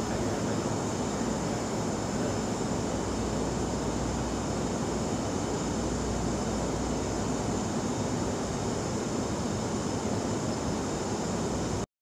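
Steady rushing background noise, like a room fan, with no distinct calls or knocks; it cuts off suddenly near the end.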